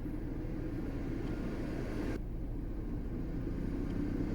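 BMW F30 320d heater/air-con blower fan running at maximum speed: a steady rush of air with a rumbling noise from the blower motor, the sign of something stuck in the fan. Part of the higher hiss drops away about two seconds in.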